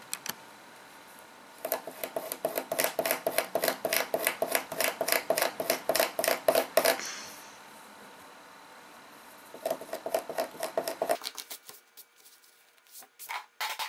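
Scissors snipping into a T-shirt's fabric in a fast, even run of about four to five snips a second for several seconds. After a pause there is a second, shorter run of snips, and a few single clicks near the end.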